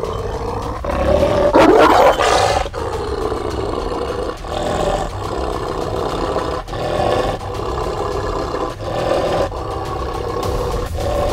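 Large Anatolian shepherd (Malaklı) dog growling continuously, a deep roar-like growl with short breaks that is loudest about two seconds in. It is a warning at a stranger standing close in front of it.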